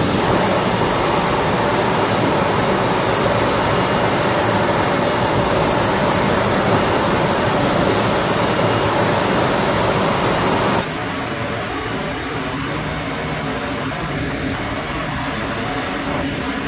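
Steady noise of a C-17 Globemaster III running on the ramp: an even rushing hiss with a faint whine. It steps down to a lower, still steady level about eleven seconds in.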